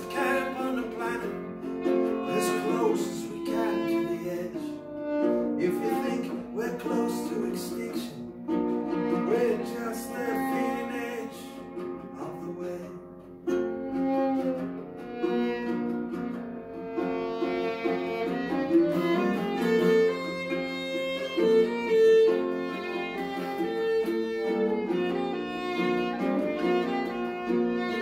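Fiddle playing a melody over strummed ukulele chords. The strumming is most prominent in the first half, and the fiddle comes forward with long held notes in the second half.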